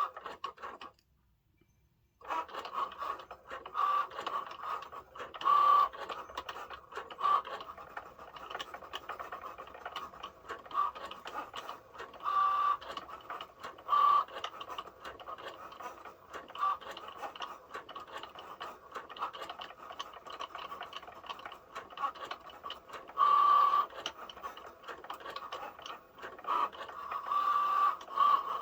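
Cricut Joy cutting machine running, its motors whining in short stop-start runs as the carriage and blade move, starting about two seconds in.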